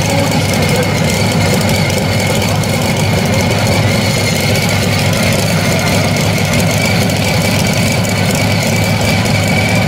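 Tractor engine idling steadily, with a thin, constant high whine over the low engine note.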